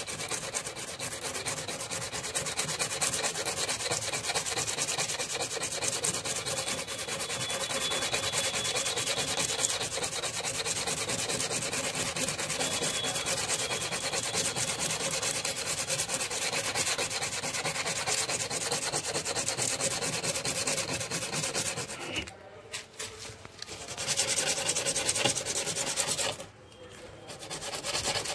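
80-grit sandpaper rubbed by hand in fast strokes over a rusted steel car body panel, grinding the rust off. The rubbing stops briefly twice near the end.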